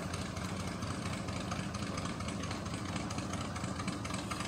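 Airboat engine running steadily at low speed.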